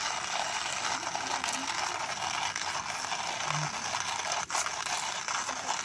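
Alocs portable hand-crank coffee grinder grinding coffee beans: a steady, dense crunching and rattling as the crank is turned.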